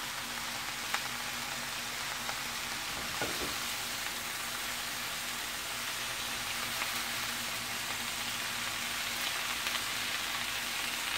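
Bok choy and other vegetables sizzling in olive oil in a skillet: a steady hiss, with a few light clicks in the first few seconds.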